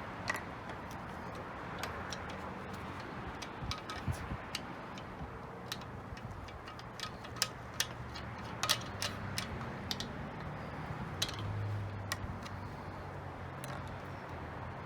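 Irregular small clicks and taps of plastic and metal level parts being handled and fitted together during reassembly, over a steady low hum.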